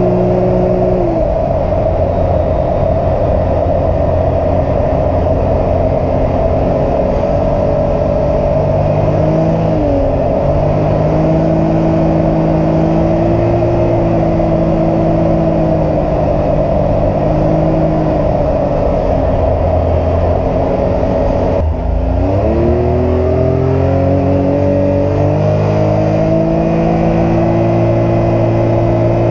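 Can-Am Maverick X3 XRC Turbo RR's turbocharged three-cylinder Rotax engine running at road speed, heard from inside the enclosed cab, with road noise underneath. The engine note dips briefly about ten seconds in, then falls sharply and climbs back again about two-thirds of the way through.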